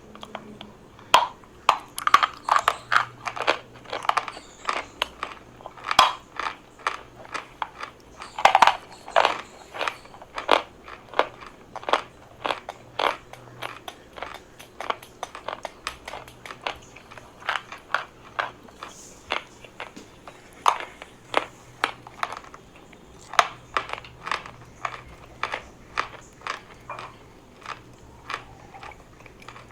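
A piece of chalk being bitten and chewed close to the microphone, in a fast, irregular run of sharp crunches, a few a second.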